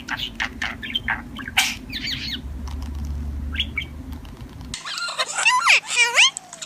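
Pet birds calling: a run of short, sharp chirps over a low hum, then, about five seconds in, a different bird's rising and falling whistles.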